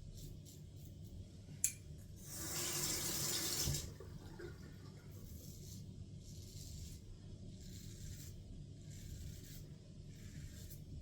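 A tap runs for about a second and a half, starting just after a sharp click about two seconds in. Short scraping strokes of a safety razor through lathered stubble follow, repeating roughly every second.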